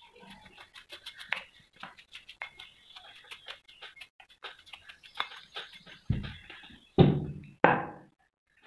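Small metal blade scraping rust and caked dirt off a corroded metal machine part: a quick run of short scratches and clicks, then three louder thuds about two-thirds of the way in.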